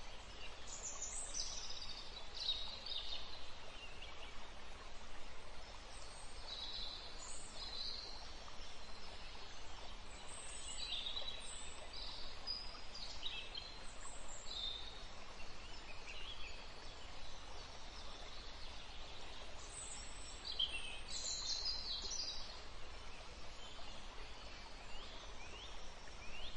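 Birds chirping: short, high, falling calls in scattered clusters over a faint steady hiss.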